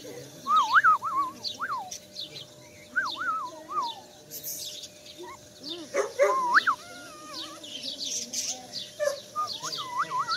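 Young puppies whining, in several short runs of high, wavering cries that rise and fall in pitch.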